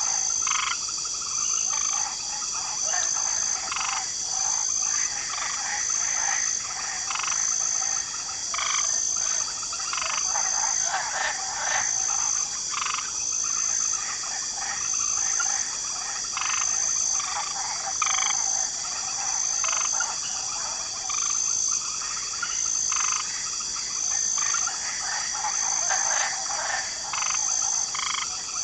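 Swamp chorus: many frogs croaking in short, irregular, overlapping calls over a steady, high-pitched drone of crickets that pulses evenly about once a second.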